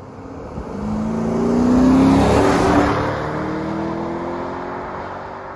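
2007 Porsche Cayenne S's 4.5-litre V8 accelerating past, its engine and exhaust note climbing in pitch as it approaches. It is loudest about two seconds in, then drops in pitch and fades as the car pulls away.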